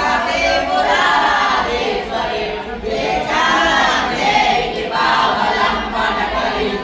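A group of voices chanting together in unison, in phrases with short breathing gaps.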